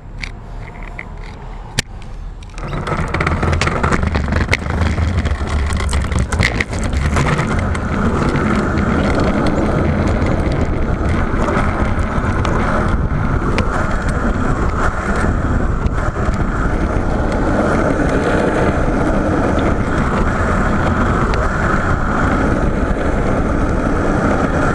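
Knobby bicycle tyres of a bikeboard rolling over brick paving and asphalt, heard from a camera mounted down by the wheel. It starts quieter with a few sharp clicks, then about two and a half seconds in becomes a loud, steady rumble that holds to the end.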